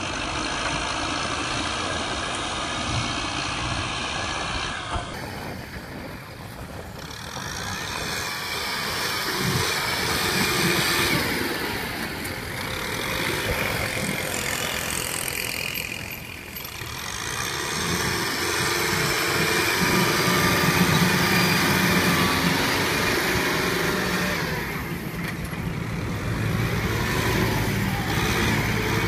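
Kubota M6040SU tractor's diesel engine working under load as its front blade pushes dirt, the engine note swelling and easing several times as the load changes.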